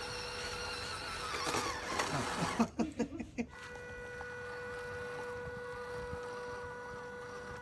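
Small electric motor whirring with a steady whine. About two seconds in, the sound wavers and pulses for a second or two, then settles back into a steady whine at a different pitch.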